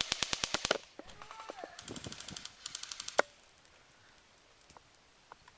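Airsoft guns firing rapid bursts on full auto: three quick bursts in the first three seconds, then a single sharp crack, then only a few scattered ticks.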